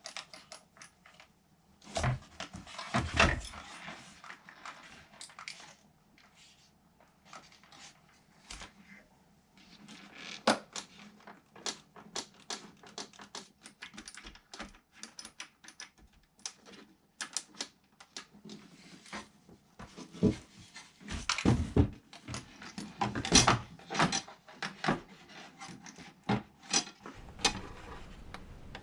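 Irregular clicks, taps and small rattles of parts and tools being handled while a guitar multi-effects floorboard is worked on, in scattered clusters with a few louder knocks.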